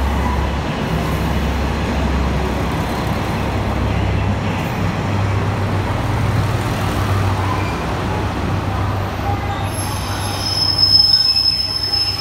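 Diesel railcars (a JR Shikoku 1000-series car coupled to a Tosa Kuroshio 9640-series car) rolling into the platform with their diesel engines running in a low steady drone. A high brake squeal rings out about ten seconds in as the train comes to a stop.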